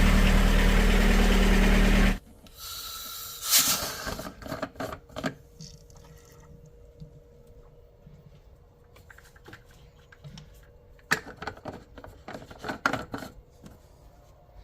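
VW Golf Mk2 1.6 diesel engine idling steadily, cutting off suddenly about two seconds in. It is followed by a short hiss, a knock and scattered light clicks and clatter of things being handled.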